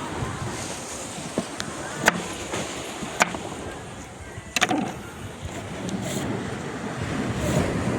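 Steady wash of seaside surf and wind, with three sharp clicks or knocks about two, three and four and a half seconds in.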